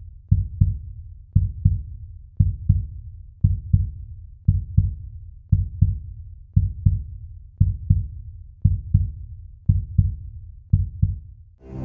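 Heartbeat sound effect: deep double thumps, lub-dub, repeating evenly about once a second.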